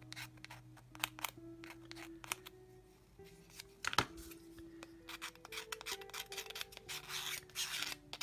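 Fine razor saw blade scraped across a styrene plastic kit part in many short strokes to scribe a wood-grain texture, with a longer, denser scrape near the end. Soft sustained background music underneath.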